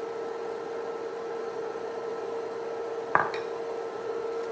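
Steady hum and hiss from the electric cooktop heating a bamboo steamer of boiling water. About three seconds in, a single sharp clink as a ceramic spoon is set down in a ceramic bowl.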